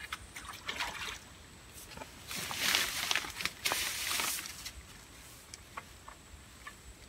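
Water sloshing and splashing in a shallow, weedy pool among water hyacinth, in two spells: a short one just after the start and a louder one lasting about two seconds from about two seconds in, with small ticks in between.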